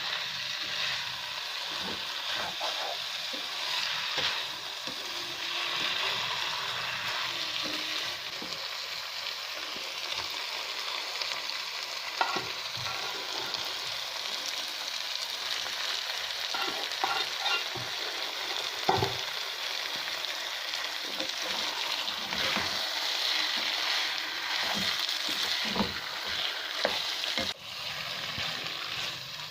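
Karela chicken sizzling in oil in a pan while it is stirred, a steady hiss with scattered short knocks and scrapes of the spoon against the pan.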